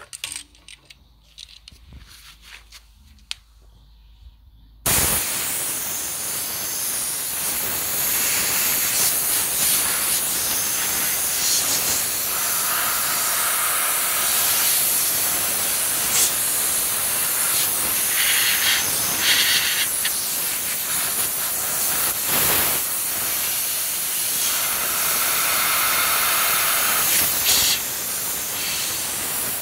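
Compressed air from an air compressor's blow gun hissing as it blasts dust out of a desktop computer case; it cuts in suddenly about five seconds in and keeps on steadily, with a whistling tone coming in twice.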